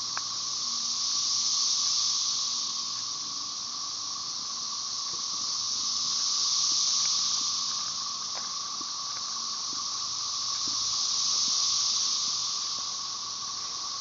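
Chorus of Magicicada tredecassini, 13-year periodical cicadas: a high, shrill buzz that swells and fades in slow waves about every five seconds. Under it runs the steady, lower drone of Magicicada tredecim.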